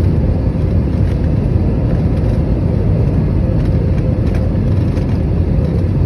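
Steady low rumble of an airliner heard from inside the passenger cabin, with a faint steady hum above it.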